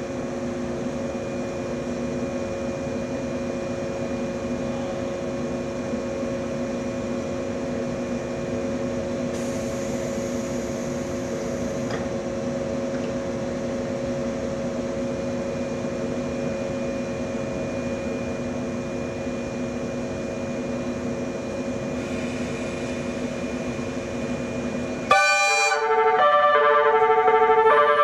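Steady electrical hum of a standing train, several tones held without change. About 25 seconds in it cuts off abruptly and a louder melodic chime tune of stepping notes starts.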